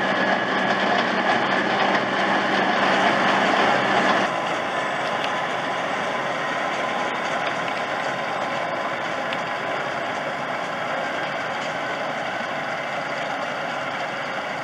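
New Holland T7.210 tractor and Grimme SE 150-60 trailed potato harvester running steadily while lifting potatoes, engine and harvester machinery together. The sound is loud, then drops abruptly to a quieter, steady level about four seconds in.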